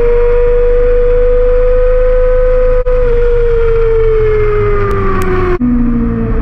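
Yamaha R6 sportbike's inline-four engine at high revs, a steady high-pitched whine that falls gradually as the bike eases off, then drops abruptly to a much lower pitch about five and a half seconds in, over a steady rush of wind.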